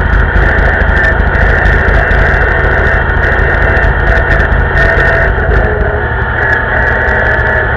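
Vintage tractor engine running steadily under way on the road, heard close up from the driver's seat as a loud, continuous drone that eases slightly about two-thirds of the way through.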